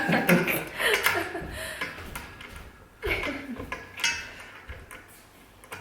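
Light metallic clicking and clinking of a hand tool working the bolts of a pull-up bar frame during assembly.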